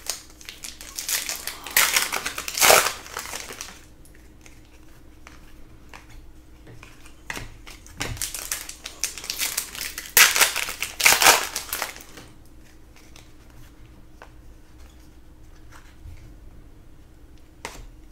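Trading card pack wrappers being handled and crumpled, crinkling in two bouts a few seconds apart, with quieter card handling between and after.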